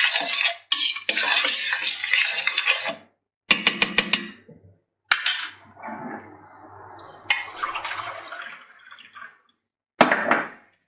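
A utensil stirring artichokes and broad beans in a stainless steel pot, scraping against the metal for about three seconds. A quick run of sharp clinks on the pot follows about four seconds in, then quieter scraping and handling, with a brief clatter near the end.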